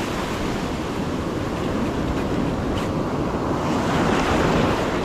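Surf washing and breaking on an ocean beach, with wind buffeting the microphone; the rush swells louder about four seconds in.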